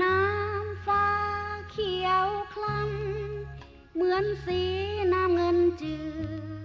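Background music: a wavering melody line over held bass notes that change every second or so.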